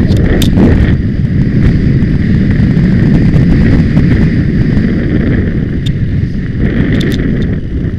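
Heavy wind rumble on a hat-mounted camera's microphone as a horse gallops over turf, with its hoofbeats under the wind and a few sharp clicks.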